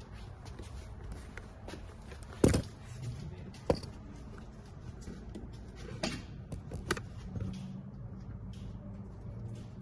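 Sharp metallic knocks and clanks of hand tools on a car's suspension and subframe parts: four distinct hits, the loudest about two and a half seconds in, among lighter ticks and rattles.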